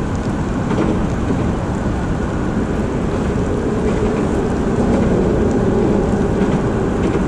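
Steady rushing noise of rain and river water, even throughout and heaviest in the low end.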